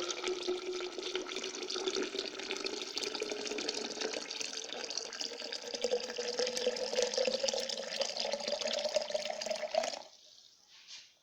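Water pouring steadily into a container, its pitch rising as the vessel fills, stopping abruptly about ten seconds in.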